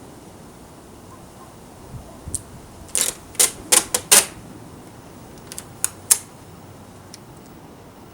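A quick run of sharp clicks and taps, about six close together around three to four seconds in and a few more near six seconds, from hands pressing and smoothing a vinyl tint overlay onto a car's plastic tail light.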